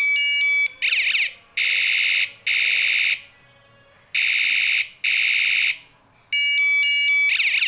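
Battery-powered electronic bicycle siren horn sounding its tone patterns: a fast beeping warble, then two pairs of harsh electronic horn blasts with pauses between, and the beeping warble again near the end.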